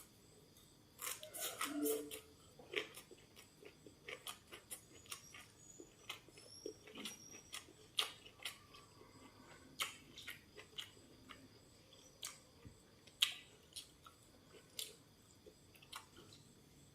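Faint, irregular crisp clicks and crunches of someone biting and chewing fried food, with a brief low murmur about two seconds in.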